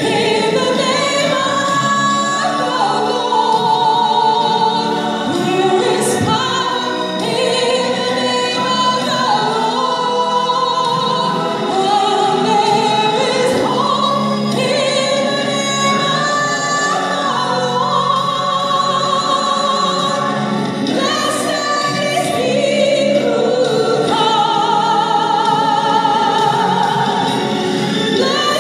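A woman singing a slow melody with a wide vibrato, over a steady musical backing.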